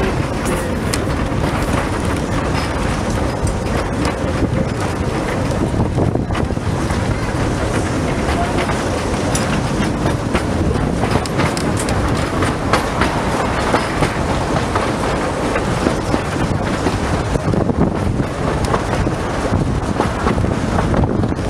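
La Trochita's narrow-gauge train running along the rails, heard from beside a wooden coach: a steady rumble from the wheels and running gear with irregular clicks and clacks over rail joints and points.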